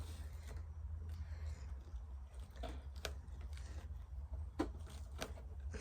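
Scattered light taps and clicks of craft materials being handled while pieces are glued onto a shoebox puppet, about half a dozen of them, over a steady low hum.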